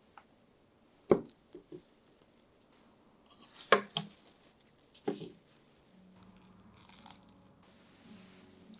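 Table knife scraping across crisp toast as butter is spread, a few short rasping strokes about a second in, near four seconds and about five seconds in. Faint music comes in near the end.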